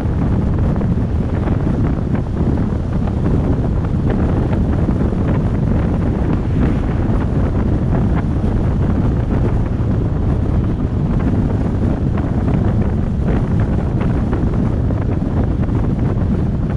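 Wind buffeting an exposed microphone on a moving pickup truck, over the steady road rumble of the truck and the loaded trailer it tows at road speed.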